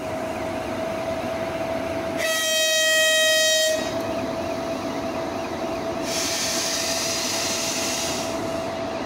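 ChS4 electric locomotive hauling a passenger train, sounding its horn once for about a second and a half, about two seconds in, over a steady high tone. A hiss follows later, lasting about two seconds.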